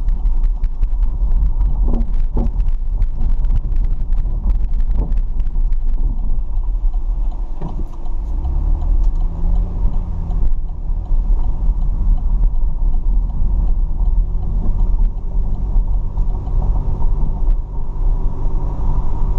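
A car driving, with a steady low rumble. Many small clicks and taps come through in the first six seconds, and a steady low hum sets in about eight seconds in.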